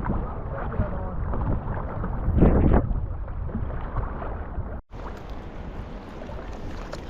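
Sea kayak paddling at sea: paddle strokes and water splashing against the hull, with wind noise on the microphone and a louder splash about two and a half seconds in. The sound drops out briefly about five seconds in, then carries on.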